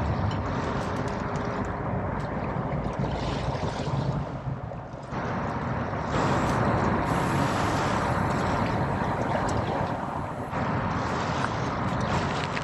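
Wind rushing over the microphone together with sea water, a dense steady noise, broken by sudden cuts about five and ten seconds in.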